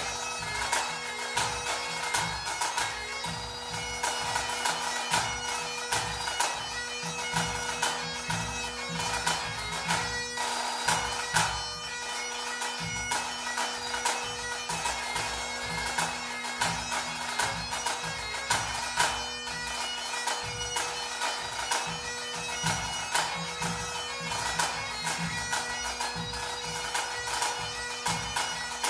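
Two Great Highland bagpipes playing a tune over their steady drones, with pipe band drums (snare rolls and bass drum beats) keeping time.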